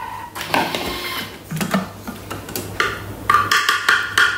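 A short beep, then knocks and clatter as the Thermomix lid is unlocked and lifted from its stainless steel mixing bowl, with a plastic bowl being handled. The clatter is densest near the end.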